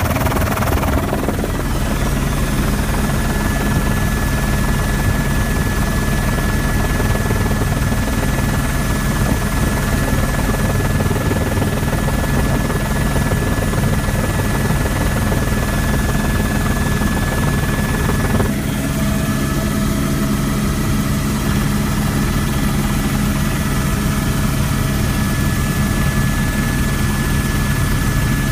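Helicopter noise heard from inside the cabin in flight: a loud, steady drone of rotor and engine with a thin, constant high tone above it. The sound's character shifts slightly about eighteen seconds in.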